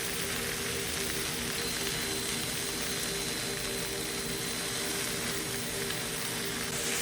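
Food sizzling steadily in a frying pan as spinach wilts with the scramble ingredients, with a steady low hum underneath.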